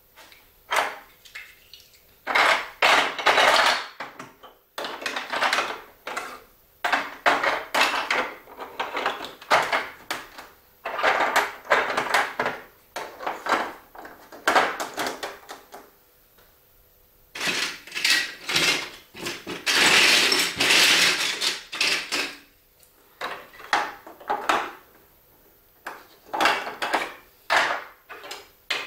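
Hard plastic marble-run pieces clattering in bursts of quick clicks and knocks as they are handled, with a pause of about two seconds past the middle.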